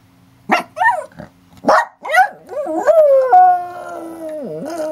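A small shaggy dog gives about four short yelps, then breaks into a long howl that rises and holds its pitch, dipping briefly near the end.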